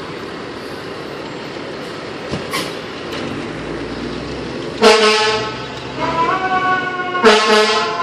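Fire engine's air horn blasting twice, about five seconds in and again about two seconds later, after steady street noise. Between the blasts a siren comes in, rising briefly and then sliding slowly down in pitch.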